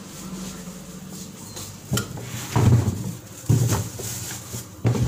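Food being put into a refrigerator by hand: a click about two seconds in, then three louder dull bumps and rustles as a plastic bag is handled against the fridge's shelves and drawer.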